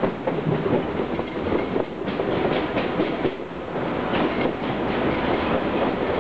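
Commuter train running, heard from inside the carriage: a steady rumble of wheels on rails, with a cluster of sharp clicks from the wheels near the middle.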